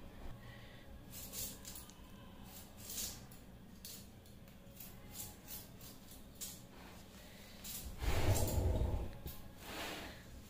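Kohlrabi being pared on a bonti, a fixed curved blade: short, quiet scraping and slicing strokes every second or so as the skin is cut away. About eight seconds in, a louder handling noise with a dull thump lasts about a second.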